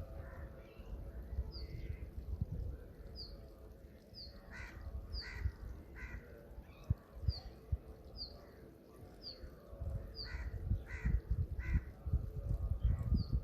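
Crows cawing over and over, about one to two calls a second, with a low uneven rumble and occasional thumps underneath.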